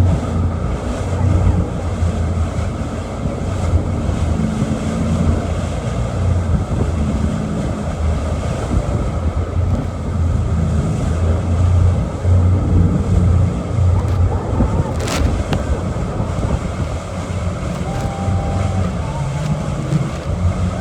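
A tour boat's engine running steadily under a loud, continuous rush of wind and churning water, with wind buffeting the microphone.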